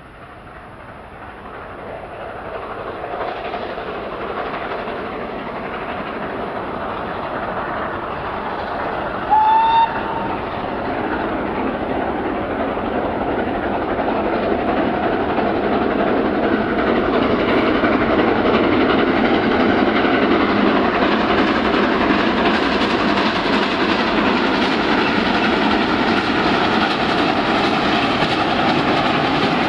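Two GWR Castle class steam locomotives, double-heading a train, draw nearer and grow steadily louder. About nine seconds in, a short, slightly rising whistle sounds.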